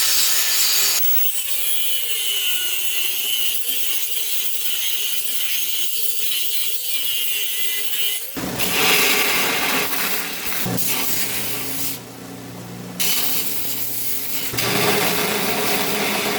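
Power tools working a forged steel knife blank, with a rasping, sawing sound in the first half. From about halfway through, a motor hums steadily under a broad hiss. The sound changes abruptly several times, as separate short clips.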